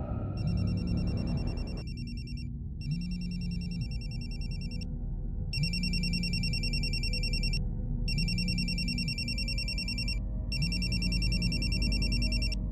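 Cordless phone handset ringing in its base: an electronic trilling ring repeated five times, each ring about two seconds long with short gaps between, over a steady low hum.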